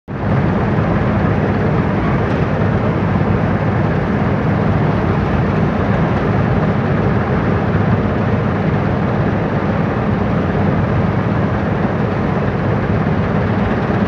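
Dashmesh 9100 combine harvester running in the field, its diesel engine and machinery giving a steady, loud mechanical noise as heard from the open operator's cab.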